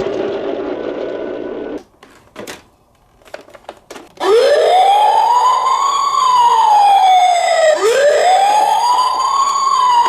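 A toy emergency vehicle's electronic wail siren starts about four seconds in and sweeps slowly up and down twice. It is preceded by a noisy rattle that cuts off about two seconds in and a few clicks.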